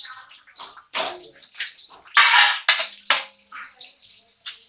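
Freshly added sliced onions sizzling and crackling in hot oil in a large aluminium pot, in irregular bursts with the loudest a little after two seconds, while a metal spoon stirs them.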